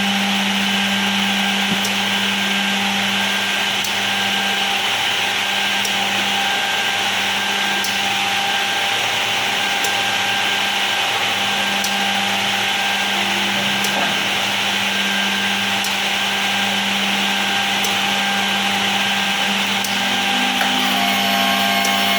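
KDT-396JS automatic edgebanding machine running: a steady motor hum and whine, with a faint tick about every two seconds. Near the end the sound changes as new higher tones come in.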